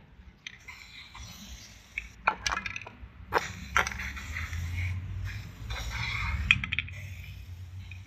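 Slime being handled and squeezed by hand, with a crackly hiss and a few sharp clicks and clinks.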